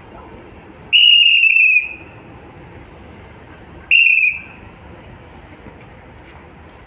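Two loud blasts on a hand whistle: a longer one of nearly a second about a second in, and a shorter one about three seconds later, each a shrill steady tone that sags slightly in pitch as it ends.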